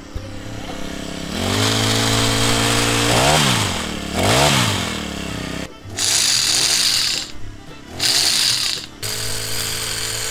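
Pull-start petrol pole hedge trimmer running with its cutter blades reciprocating, the engine revved up and down several times, most sharply twice about three and four seconds in. The sound cuts out abruptly for short moments a few times in the second half.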